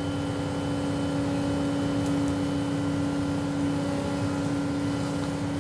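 Excavator engine and hydraulics running at a steady pitch, a constant hum with an even tone, while the boom moves a loaded bucket of dirt.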